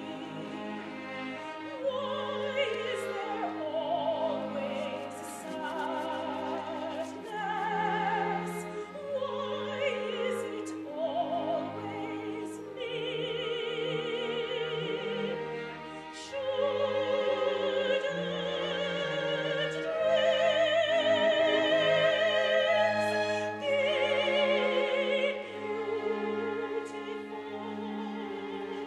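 Opera singing with wide vibrato over orchestral accompaniment. Long held notes swell louder about two-thirds of the way through.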